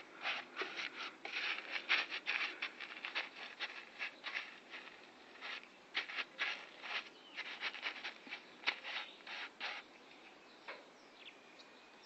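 Rapid scraping strokes on a vehicle body panel, several a second, in uneven runs with short pauses.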